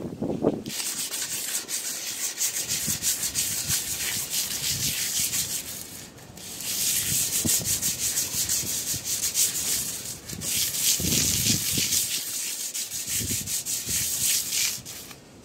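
Sandpaper scrubbing rust off a chrome exhaust tip by hand in fast back-and-forth strokes. It comes in three spells with brief pauses about six and ten seconds in, and stops near the end.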